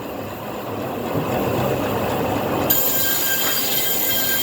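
Sawmill band saw cutting through a log: a steady, continuous run with a few held high tones, turning brighter and fuller abruptly about three seconds in.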